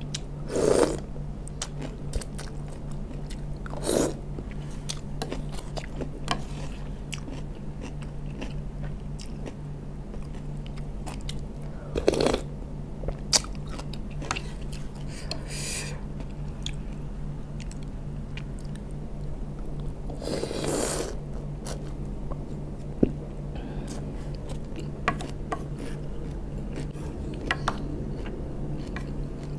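Close-miked mukbang eating of asinan sayur: wet chewing and crunching of pickled cucumber and cabbage, with small clicks of the wooden spoon and fork. A handful of louder slurps as spoonfuls of the sauce go in, about a second in and a few more spread through, over a steady low hum.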